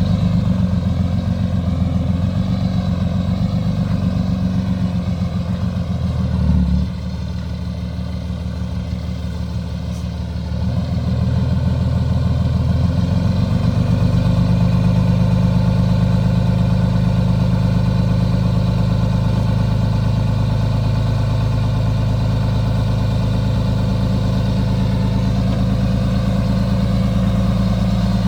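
Excavator engine running steadily. About seven seconds in it drops quieter for a few seconds, then rises back to its earlier level.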